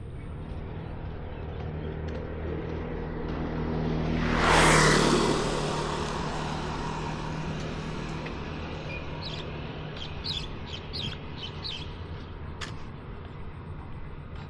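A motor vehicle's engine approaching and passing close by, loudest about four and a half seconds in, then fading. A few short high bird chirps follow, with a single sharp click near the end.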